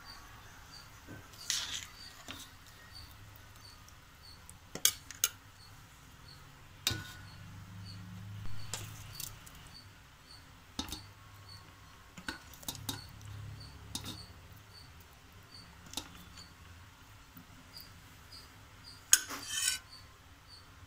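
A spoon knocking and clinking against the rim and inside of an aluminium pot as chicken gravy is spooned onto rice, in scattered light taps with a louder knock near the end, over a low steady hum.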